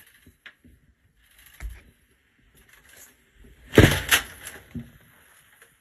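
Paper towel rustling with light clicks and knocks as a snake moves about on it, and a loud crinkling bump about four seconds in.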